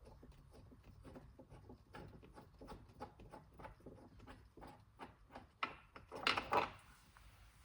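A quick series of light clicks and rattles, about four a second, from the mirror mounting bolts being worked out of the door by hand, with a louder rustle of handling about six seconds in.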